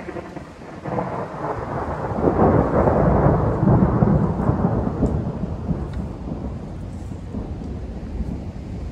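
A long roll of thunder, swelling about a second in, loudest near the middle, then fading to a low rumble.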